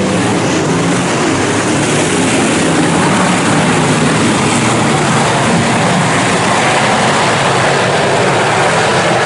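A full field of IMCA Northern SportMod dirt-track race cars running hard together as a pack, many V8 engines at high revs blending into one loud, steady drone.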